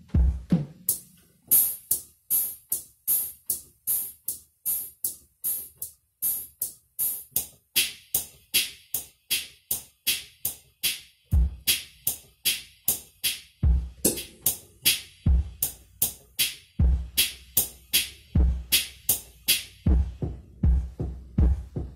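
Drum and cymbal voices on a Yamaha electronic keyboard played in a steady, even beat that imitates a ticking clock. Bright cymbal hits come in a second or two in, and low bass-drum beats join in groups from about halfway through.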